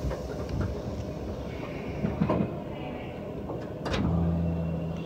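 Railway station platform ambience: a steady background rumble with a few scattered knocks, and near the end a click followed by a steady low hum for about a second.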